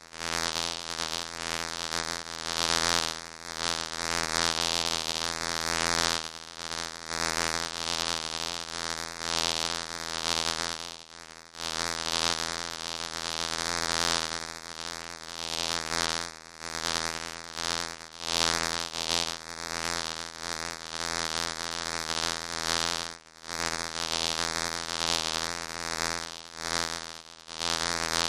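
Bee buzzing in flight: a steady, pitched wing-buzz that swells and fades as it moves, dropping away briefly twice.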